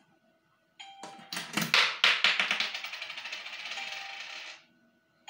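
A coin going into the Wi-Fi vending machine's coin acceptor: a few sharp clicks, then a fast run of ticking for about two and a half seconds that stops suddenly, as the machine registers the coin and the credit counts up.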